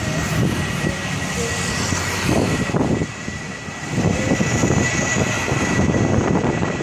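Airbus A321-231's IAE V2500 turbofans at takeoff power as the airliner accelerates down the runway: a steady high whine over a rushing, uneven low rumble.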